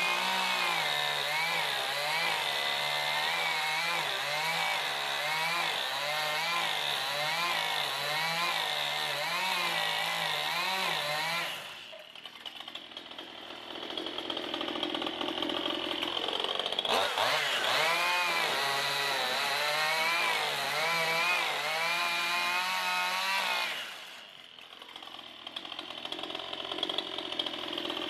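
Chainsaw cutting into a boat's wooden stern post at full throttle, its pitch wavering as the chain bites. About twelve seconds in it drops to idle, revs up and cuts again about five seconds later, and falls back to idle near the end.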